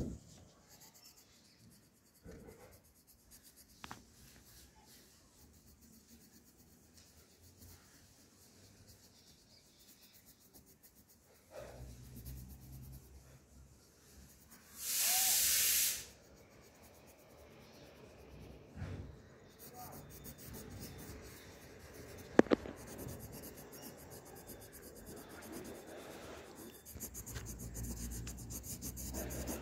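Pencil scratching on paper in back-and-forth shading strokes as a drawn head is filled in dark. About halfway through a loud hiss lasts about a second, and a sharp click comes a few seconds later.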